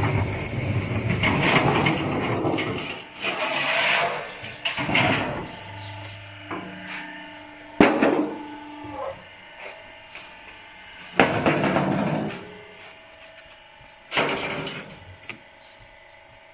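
Steel oil-drum cutting machine at work: a steady electric-motor hum with loud scraping of the drum for the first few seconds. Then come scattered metal clanks and knocks, with short ringing from the sheet steel, and a few noisy bursts as drum pieces are handled.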